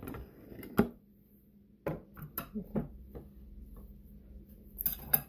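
A few light clicks and knocks: a sharp one about a second in, some fainter ones, and a cluster near the end.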